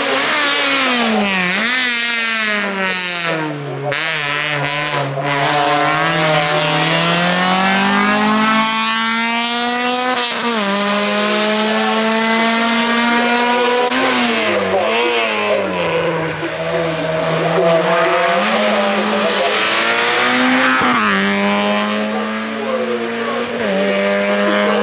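Race car engine running hard up a hill-climb course, revving through the gears. Its pitch falls and climbs again in long glides, then holds high and steady, with several sharp dips as the driver shifts or lifts for the bends.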